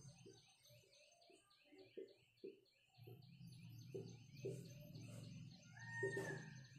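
Faint bird chirping: a rapid, even series of small high chirps, over the soft irregular scratching of a marker writing on a whiteboard.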